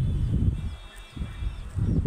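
Farm birds calling: a drawn-out high call about half a second in and small short chirps, over a low rumble.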